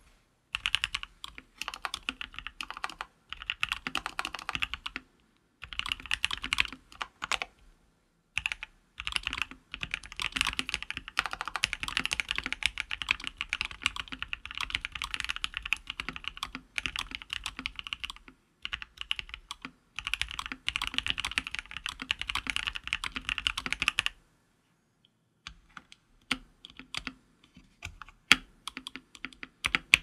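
Fast typing on a KBD67 Lite custom mechanical keyboard with lubed and filmed Durock L-series linear switches and Akko Macaw keycaps: a dense clatter of keystrokes in runs of a few seconds with short pauses. The stabilizers are ones the owner says still need work. The typing stops about three-quarters of the way through, and only a few scattered single key presses follow.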